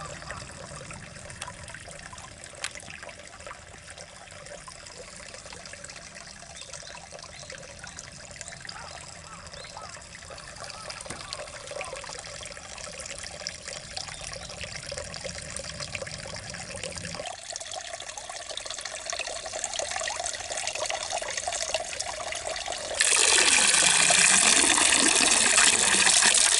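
Water trickling and running steadily, a little fuller about two-thirds of the way through. Near the end a much louder rush of water, like a pour or gush, starts suddenly.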